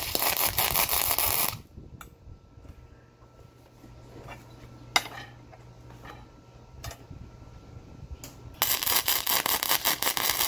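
Harbor Freight Titanium MIG 140 welder tack-welding steel: two crackling arc bursts of under two seconds each, one at the start and one starting near the end. Between them come a few light clicks over a low hum.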